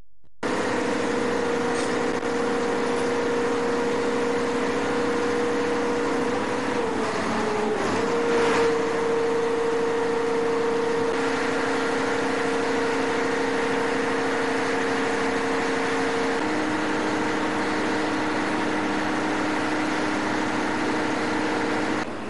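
A boat's engine running steadily with a droning hum. Its pitch dips briefly about seven seconds in, and one tone steps up a little past the middle.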